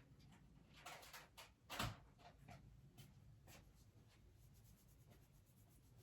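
Near silence: quiet room tone with a few faint, short clicks and knocks, the loudest about two seconds in.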